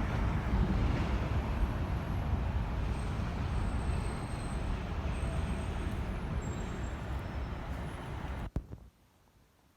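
Steady city street traffic noise, a low rumble of passing vehicles with faint high squeals. About eight and a half seconds in it cuts off abruptly with a click, leaving near silence.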